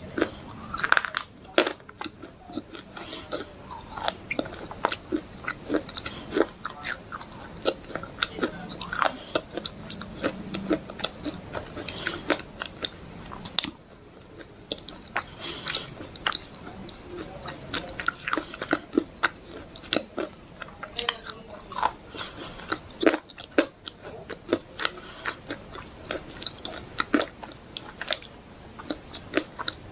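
A person chewing and biting dry clay, with many irregular sharp crunches throughout.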